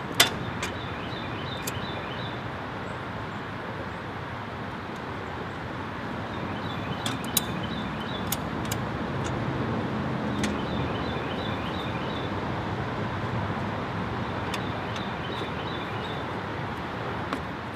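Steady outdoor background noise like distant road traffic, with scattered sharp clicks from the metal folding wheel step being handled and adjusted, and a few faint high chirps.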